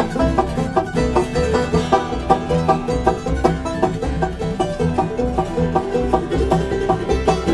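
Bluegrass band playing live: quick, steady banjo picking over acoustic guitar, mandolin and upright bass.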